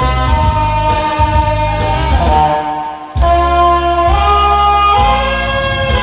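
Alto saxophone and a backing track playing a slow pop ballad over the stage speakers. The music drops away briefly about halfway through, then comes back with long held notes.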